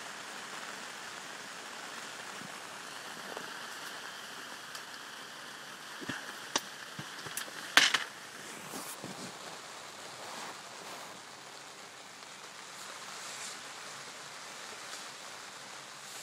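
Steady rain falling on lake water and a wood-chip bank, an even hiss. A few sharp knocks about six to eight seconds in, the loudest near eight seconds.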